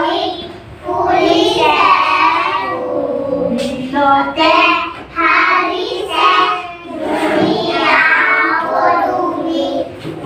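A group of young children singing together in short phrases.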